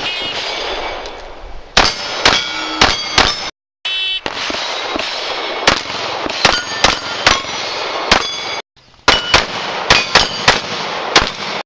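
Rapid strings of 9mm shots from a compensated open-class race pistol, each shot followed by the ring of a steel target plate being hit. Three quick strings of about five shots each, roughly two shots a second.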